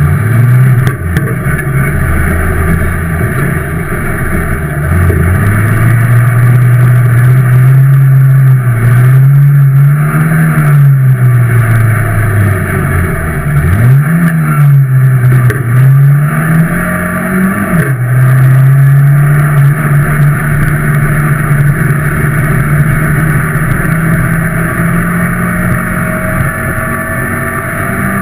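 Ministock dirt-track race car's engine, heard from inside the cockpit, running hard around the track. The engine note rises and falls several times in the middle as the driver comes off and back onto the throttle, then holds a steady pitch for the last part.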